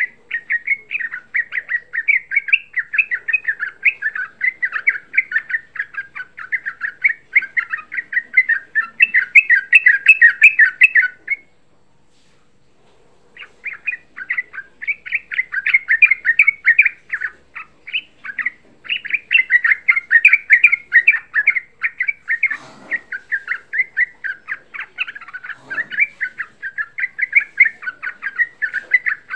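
Yellow-vented bulbul singing a long, rapid chattering song of short notes, breaking off for about two seconds near the middle and then running on.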